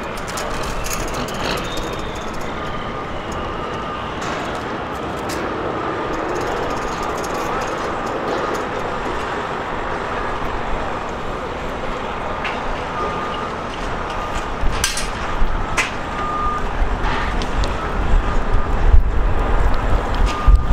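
Heavy trucks' diesel engines running in an equipment yard, with a vehicle backup alarm beeping on and off in the second half. A deeper rumble grows louder near the end.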